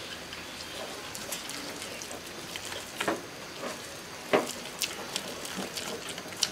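Silicone spatula stirring and scraping a thick milk-and-rice-flour filling in a nonstick frying pan as chopped date-palm jaggery melts in, over a faint steady sizzle, with a few soft taps of the spatula against the pan, the loudest a little past the middle.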